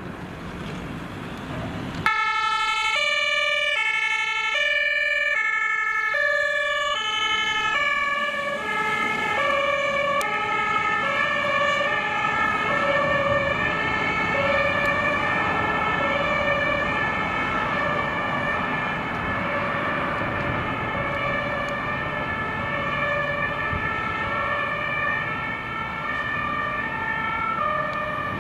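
German two-tone emergency siren (Martinshorn) on a VW fire-brigade command van, switched on about two seconds in and alternating steadily between a high and a low note as the van drives off on an emergency run.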